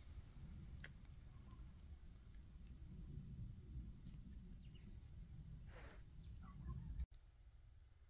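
Quiet winter forest ambience: a low rumble on the microphone with a few faint, short, high bird chirps scattered through and a brief rustle about six seconds in. The sound drops off abruptly about seven seconds in.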